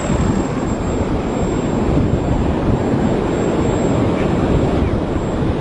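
ParkZone T-28 Trojan RC plane's electric motor and propeller in flight, a thin steady high whine that dips slightly in pitch in the first second. A heavy low rumble of wind on the microphone runs beneath it and is the loudest part.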